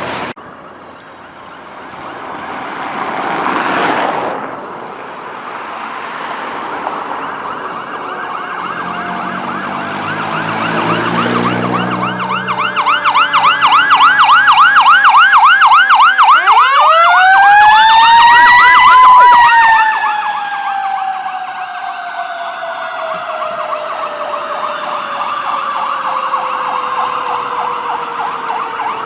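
Fire engines passing under emergency response with sirens. A fast yelping siren cycles several times a second, then a louder wailing siren climbs to a peak and slowly falls away as the trucks go by, with engine and road noise underneath.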